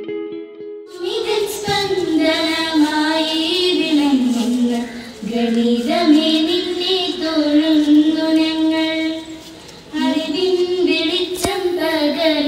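Two schoolgirls singing a song together in unison into a microphone. The singing begins about a second in and breaks briefly between phrases about five and ten seconds in.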